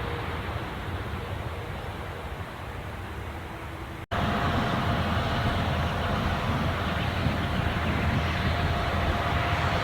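Airbus A330 airliner landing: a steady low rumble and rush of noise that cuts out for an instant about four seconds in, then comes back louder with a steady whine running through it.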